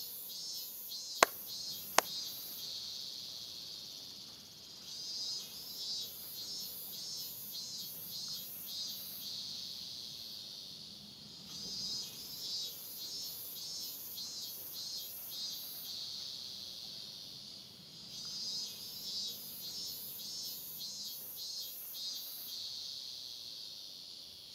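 Two sharp handclaps about a second in, the two claps of Shinto prayer, over insects chirring in fast high pulses that swell and fade in phrases every six seconds or so.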